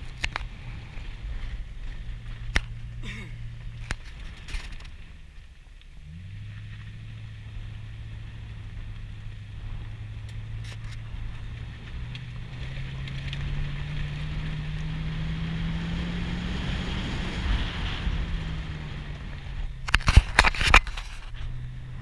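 Vehicle engine running while driving on a dirt road, its pitch dropping briefly early on, then rising slowly and falling again. Scattered sharp knocks and rattles, with a loud cluster of knocks a couple of seconds before the end.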